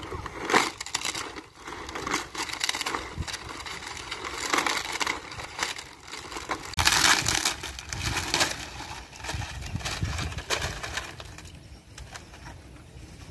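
Dry palm fronds crackling and rustling as they are gathered and handled, in irregular bursts that are loudest about half a second in and again around seven seconds.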